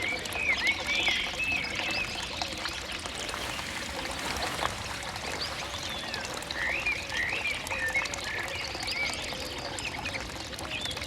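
Outdoor countryside ambience: small birds chirping in short bunches, near the start and again past the middle, over a steady wash of running water, with faint low calls underneath.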